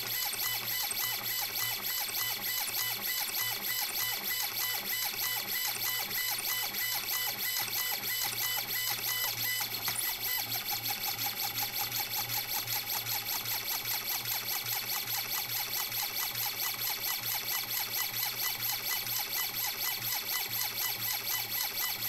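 Stepper motor of a robotic safe auto-dialer turning a combination dial back and forth as it works through combinations: a pitched mechanical whir that pulses a few times a second, with a shift in tone about halfway through.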